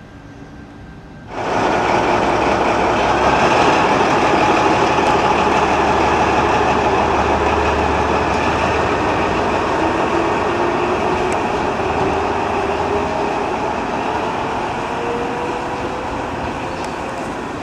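Metre-gauge diesel-hydraulic locomotive 199 861-6 throttling up suddenly about a second in and pulling away, its engine running loud. A whine rises slowly in pitch as it gathers speed, and the sound fades gradually as it draws off.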